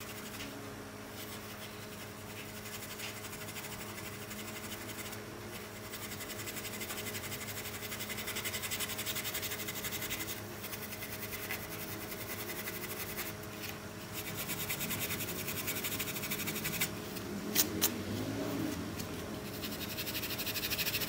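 Fingernails scratching and scraping loose, poorly adhered spray paint off an M1A rifle stock, in stretches that swell and fade, over a steady low hum. Two sharp clicks come about three-quarters of the way through.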